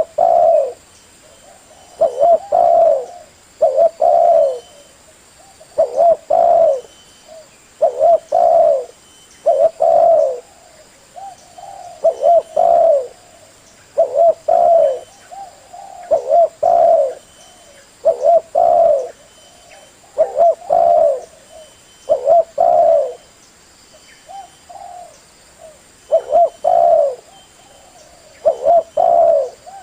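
Male spotted dove (tekukur) cooing over and over, the male's advertising call that draws females. Low, loud coo phrases come about every two seconds, with softer notes between them.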